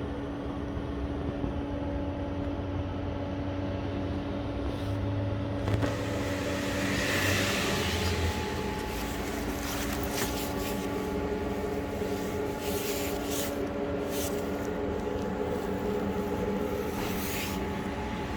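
Motor vehicle engine running steadily with a low rumble and a constant hum, in street traffic noise.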